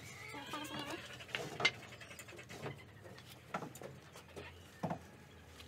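Scattered short knocks and taps from hand work on wooden coop door frames, about five in all, with faint animal calls in the background.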